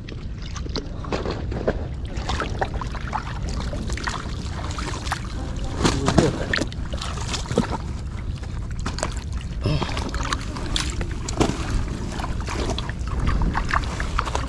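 Shallow muddy water sloshing and splashing in irregular bursts as a person wades through it and reaches into it by hand, over a steady low rumble.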